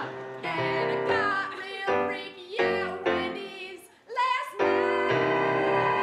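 A woman singing with electric piano chords, in short phrases, then belting one loud held note near the end.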